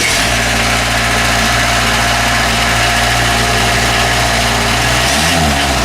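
John Deere 125 skid steer's diesel engine idling steadily just after starting from a glow-plug preheat. Near the end the engine speed briefly dips and picks back up.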